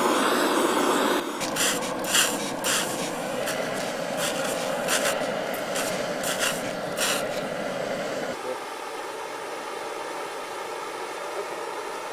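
Water squirted from a hand spray bottle onto a red-hot Zircaloy tube: a run of about a dozen short, sharp hisses over some six seconds, over a steady background hiss. About eight seconds in it drops to a quieter steady hiss.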